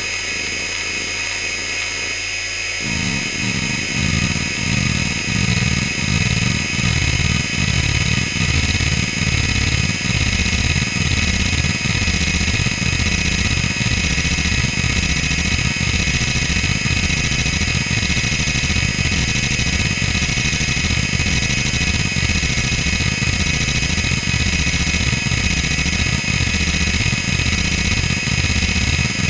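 Fujitsu M2903SGM 2.1 GB seven-platter SCSI hard drive running hdmotion seek patterns. Its steady high spindle whine sits under rhythmic head-seek buzzing that rises and falls in pitch as the heads sweep back and forth. The seeking gets louder about three seconds in.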